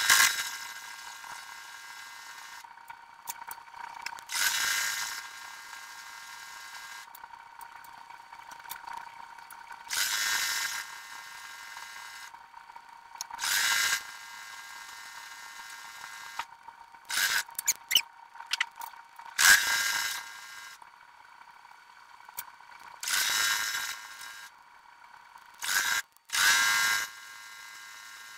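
Domestic sewing machine stitching in short runs, about seven bursts of a second or so each, high-pitched because the footage is sped up, with a steady faint hum between runs.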